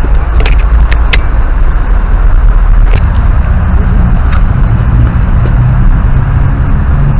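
Heavy, steady low rumble of wind and movement buffeting the microphone, with a few sharp clicks scattered through the first half.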